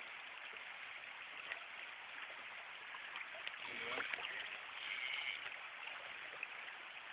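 Steady rush of a shallow river's current flowing over riffles. Somewhat louder, brighter sounds rise over it between about three and a half and five and a half seconds in.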